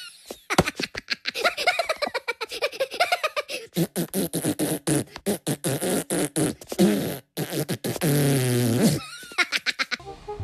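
A rapid, choppy string of short comical vocal sound effects, cut together with sudden breaks and sliding pitches, like a meme or beatbox sound edit.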